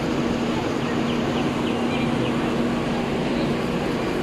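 Scania K230UB city bus's diesel engine idling at the kerb with a steady hum.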